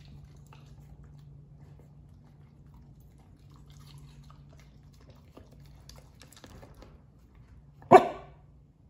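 Corgi giving a single short, loud bark near the end, after several seconds of faint small clicks as it noses about its plastic slow-feeder bowl.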